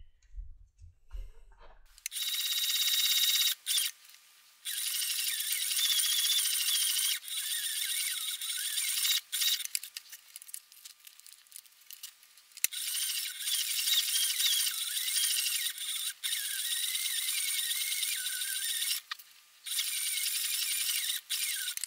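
Heavy-duty leather sewing machine stitching two layers of a leather holster together. It starts about two seconds in and runs in long stretches, with a few short stops as the work is turned.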